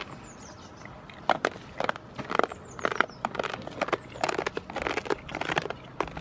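Goat hooves clattering and knocking irregularly on a hard surface, a quick uneven run of sharp knocks for a few seconds.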